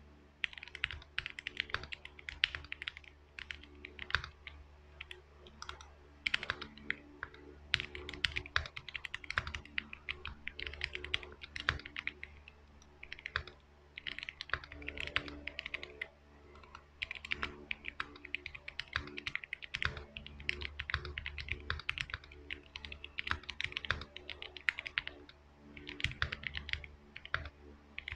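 Fast touch typing on a DZ60 mechanical keyboard fitted with Koala switches in an aluminium case: a dense patter of key clacks in runs, broken by brief pauses.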